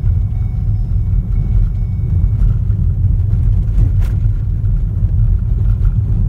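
A car driving over an unpaved dirt road, heard from inside the cabin: steady low road and engine noise. There is a single faint click about four seconds in.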